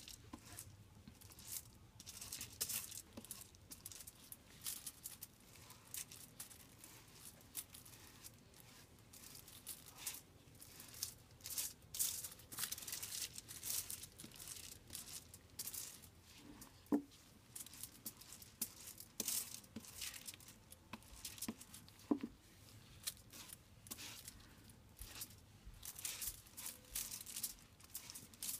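Faint, irregular scratchy strokes and crinkling of aluminium foil as bleach paste is worked through a hair extension weft lying on the foil, with a couple of small knocks.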